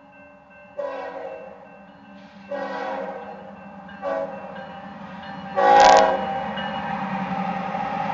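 BNSF diesel locomotive's air horn sounding four blasts as the train approaches: two of about a second each, a short one, then the loudest, about half a second long. After the last blast the locomotive's running grows steadily louder.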